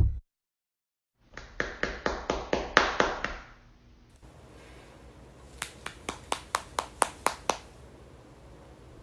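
Two runs of sharp, quick hand taps, about five a second: about ten in the first second and a half of sound, then, after a short pause, another run of about ten.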